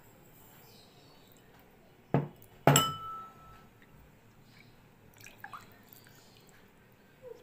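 Two sharp knocks on a glass bowl a little over two seconds in, half a second apart. The second is louder and rings briefly. Faint small sounds of a thick batter being stirred with a spatula follow.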